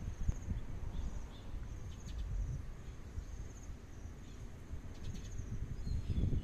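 Insects chirping in short, high, pulsing trills that repeat about once a second, over a steady low rumble.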